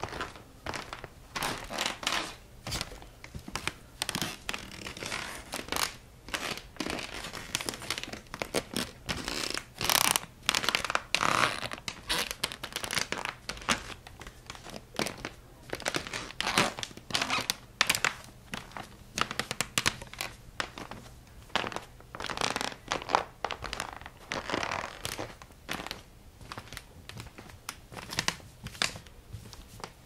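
Wooden floorboards creaking and squeaking under weight: a long, unbroken run of irregular creaks, some sharp and short, some drawn out.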